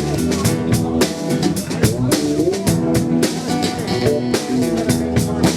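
Live band playing a song: a drum kit keeps a steady beat under guitar chords.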